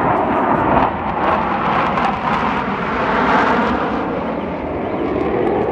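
F/A-18 Super Hornet jets flying overhead: a loud, steady jet roar that swells slightly and holds.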